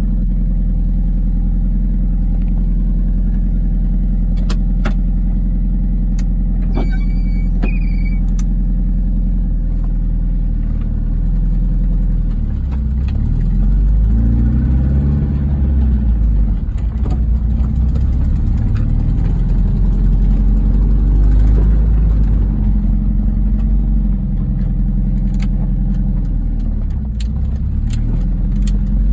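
1998 MGF VVC's 1.8-litre K-series four-cylinder engine idling steadily, then revved up and down repeatedly from about twelve seconds in. It has a ticking and squealing noise that comes from an exhaust leak at loose exhaust manifold bolts.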